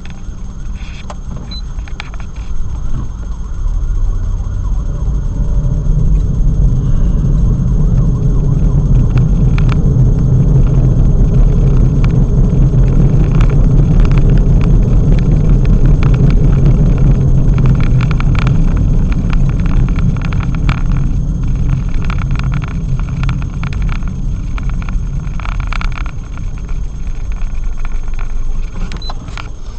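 A car's engine and road noise heard from inside the cabin, rising as the car pulls away and speeds up, then easing off as it slows into queued traffic. Scattered short clicks and rattles run through it.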